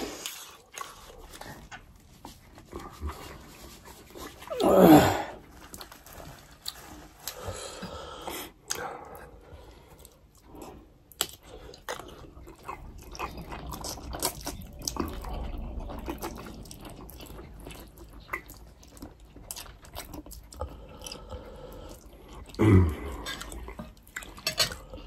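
Two people eating spicy instant noodles: slurping and chewing, with small clicks of forks and spoons on plates. Two short, louder voice-like sounds with a falling pitch come about five seconds in and again near the end.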